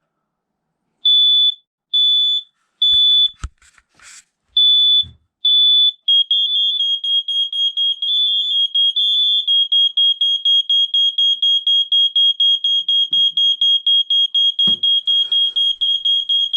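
Two smoke alarms going off under a smoke test. One sounds the three-beep temporal evacuation pattern: three short, high beeps, a pause, then more beeps. About six seconds in, a second alarm joins with a loud, rapidly pulsing high tone that carries on, with a couple of knocks and a thump from handling.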